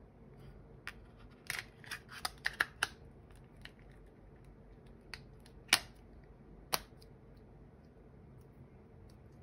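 Sharp clicks of a thin clear hard plastic case snapping onto an iPhone 14 Pro Max as its edges are pressed into place: a quick run of about six clicks, then two louder single clicks a second apart.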